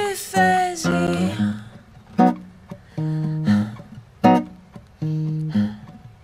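Acoustic guitar playing slow, spaced plucked chords, each left to ring and die away. A wordless sung line trails off in the first second or so.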